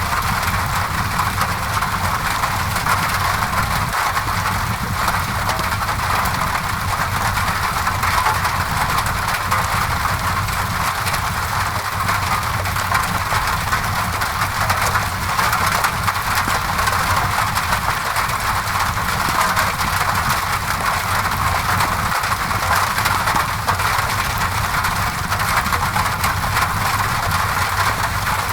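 Steady rain on a window mixed with a crackling fireplace, over a constant low rumble.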